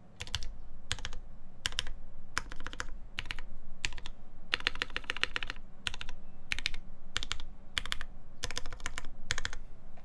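Custom gaff.60 HHKB-layout mechanical keyboard with lubed linear switches (Cherry MX Black housings with 415Keys UHMWPE stems) in a full aluminum plate, under GMK ABS keycaps, typed on in quick bursts of keystrokes. There are about a dozen short bursts with brief gaps between, and a longer run about halfway through.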